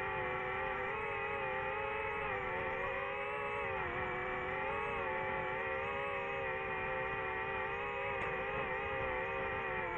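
DJI FPV drone's motors and propellers whining steadily in flight, the pitch wavering a little and dipping briefly as the throttle changes.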